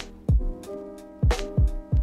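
Background music: a drum beat of deep kicks and sharp snare hits over held chords.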